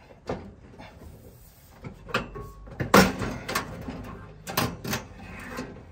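Knocks and rattles of a Trumatic caravan heater's front casing being lifted and pulled off, the loudest knock about three seconds in.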